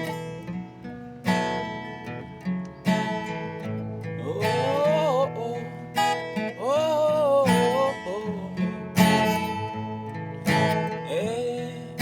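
Music: a strummed acoustic guitar introduction, with a gliding, wordless melody line coming in over it about four seconds in.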